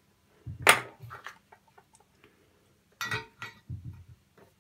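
Hand tools clicking and knocking on a workbench as a plastic solder pump is set down and a reel of desoldering braid is reached for: one sharp knock about two-thirds of a second in, a few faint clicks just after, and a small cluster of clicks around three seconds in.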